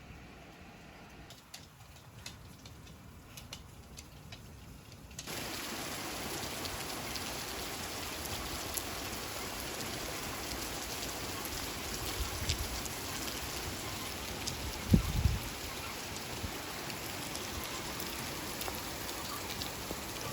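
Heavy thunderstorm rain coming down. It is quieter for the first few seconds, with scattered drip clicks, then about five seconds in it jumps sharply louder into a steady downpour. A single low thump stands out about two-thirds of the way through.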